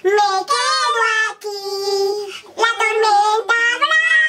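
A young girl and a woman singing loudly in high, wordless notes, each held for a second or two, the last one rising near the end.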